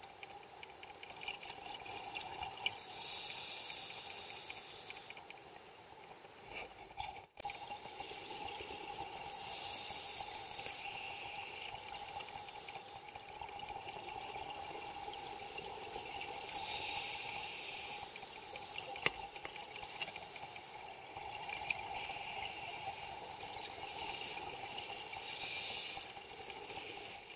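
Underwater sound of a scuba diver breathing through a regulator: a bubbling hiss with each breath, recurring about every six or seven seconds, over a steady hum. A brief break about seven seconds in.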